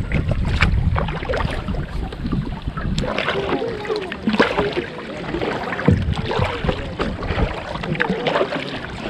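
Double-bladed kayak paddle strokes: the blades dip, splash and drip in the water in an uneven run of strokes. A low wind rumble on the microphone lasts the first few seconds, then drops away.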